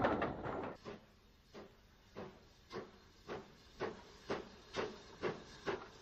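Steam locomotive pulling away, its exhaust chuffing in sharp, evenly spaced beats that come gradually quicker as it gathers speed. A rushing noise dies away in the first second.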